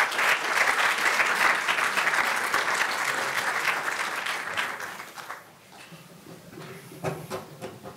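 Audience applauding, the clapping dying away about five seconds in, with a few last scattered claps near the end.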